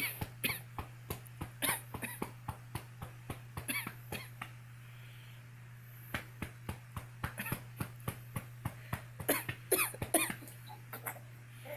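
A woman coughing several times while a baby laughs in quick, breathy little giggles between and over the coughs.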